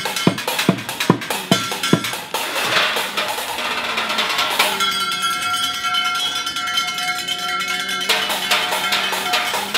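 Drumsticks beating fast on kitchen pots, pans, plastic buckets and scrap metal, a dense run of strikes with clanging metallic ringing. From about five to eight seconds a few ringing tones hold steady under a rapid roll.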